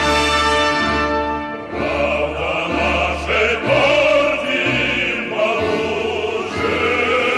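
A choir singing with an orchestra, in long held notes over a bass line that moves every second or so.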